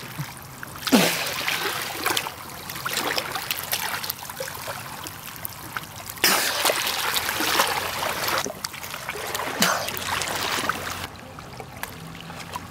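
Hands splashing and sloshing in shallow water among rocks, in several separate bursts.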